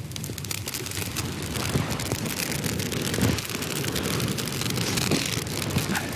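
Fire of burning juniper branches crackling and popping in a dense, steady patter as the branches flare up.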